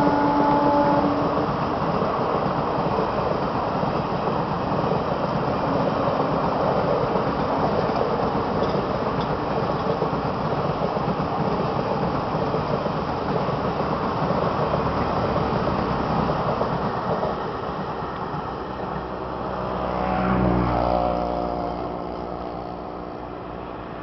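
Passenger train's coaches rolling past on the tracks, a steady rumble mixed with road traffic noise that fades after about seventeen seconds. The electric locomotive's horn ends about a second and a half in, and a second swell of vehicle noise with a pitched hum passes about twenty seconds in.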